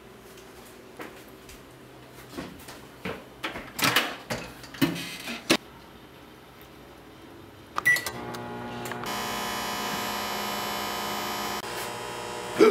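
Microwave oven handled with a few clicks and knocks, then a short keypad beep, followed by the oven running with a steady electrical hum for about four seconds near the end.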